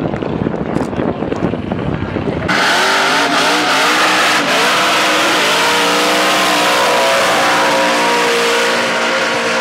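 First a distant burnout's rumble. Then, after a sudden cut about two and a half seconds in, two supercharged cars doing a side-by-side burnout: engines held at high revs with wavering pitch, over the screech of spinning tyres.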